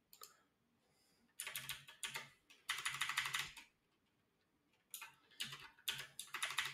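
Computer keyboard being typed on in three short bursts of quick keystrokes, with pauses between.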